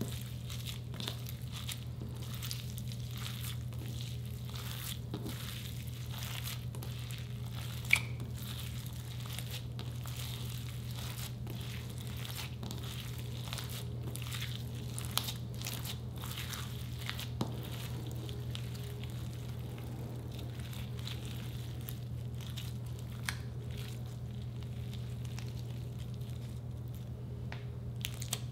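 Hands squishing, kneading and stretching crushed giant Orbeez water beads in clear slime: a steady run of small wet crackles and squelches over a steady low hum, with one sharper click about eight seconds in.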